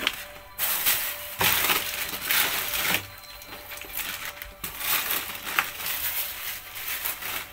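Clothes rustling and crumpling as they are pulled out and sorted by hand, in two long stretches with a short lull about three seconds in.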